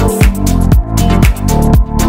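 Electronic house-style background music with a steady beat of about two beats a second over a repeating bass line.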